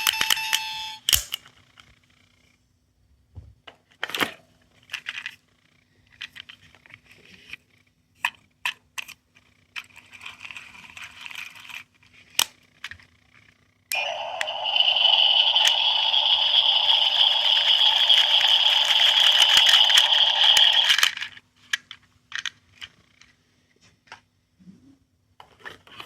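Small sound-making capsule toys being handled and pressed, with plastic clicks and rattles. A short electronic tone ends about a second in. About 14 seconds in, a toy's sound chip plays a loud, steady electronic sound for about seven seconds, then cuts off suddenly.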